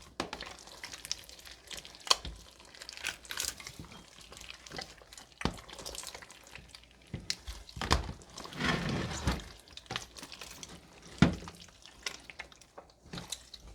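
Slime with foam beads being squished and kneaded together by hand: irregular wet squelches with small clicks and pops, busiest a little past halfway.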